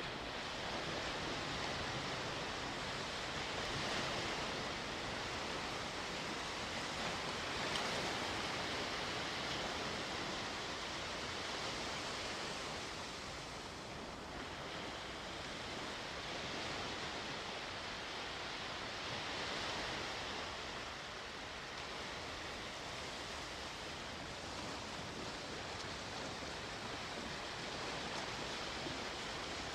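Sea waves washing onto the shore: a steady hiss that rises and falls with each wave every few seconds.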